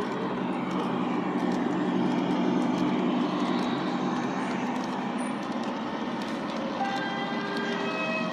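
LGB garden-scale model freight train, led by a model ÖBB 2095 diesel locomotive, rolling past close by: a steady rumbling clatter of wagon wheels on the track, a little louder in the first few seconds.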